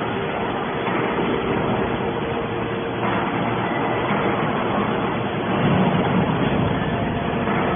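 Hydraulic aluminum scrap baler running: a steady machine hum with a couple of held tones, growing somewhat louder about six seconds in.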